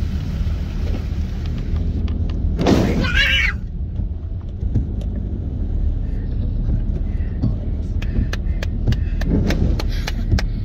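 Car driving through shallow flood water, heard from inside the cabin: a steady low rumble of tyres and engine. A loud rushing splash comes about three seconds in, and a run of sharp taps from spray hitting the windscreen follows in the last few seconds.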